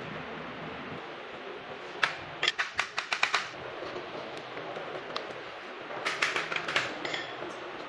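Two quick runs of sharp taps, one about two seconds in and another about six seconds in, as small pins are driven through a white sheet into an MDF jali panel.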